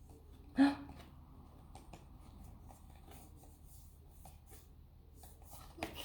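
Faint paper rustling and soft clicks from the pages of a K-pop album photobook being handled and turned, with one short louder sound about half a second in.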